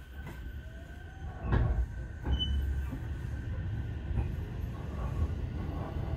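Electric train running, heard from inside a carriage: a steady low rumble with a few sharp clanks from the wheels and track.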